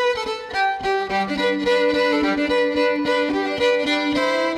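Instrumental outro music led by a fiddle playing a quick run of notes, with a held lower note entering about a second in.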